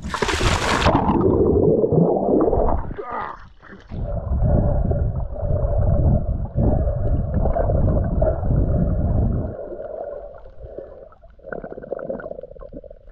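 A splash as a snorkeler goes into the water, then muffled underwater water noise as he swims, with heavy low rushing for several seconds that eases off about two-thirds of the way through.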